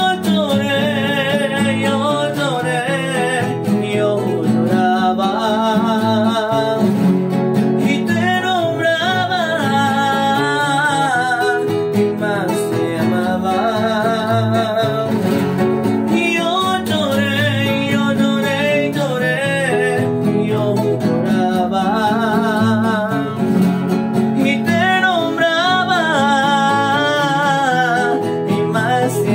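Nylon-string classical guitars playing a continuous passage between sung verses: a wavering lead melody over plucked and strummed chords.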